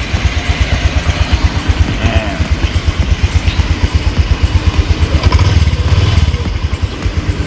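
Honda Click 125i scooter's single-cylinder four-stroke engine idling with a rapid, even low beat, briefly a little louder about five seconds in. It runs again now that the chewed side-stand switch wiring has been spliced.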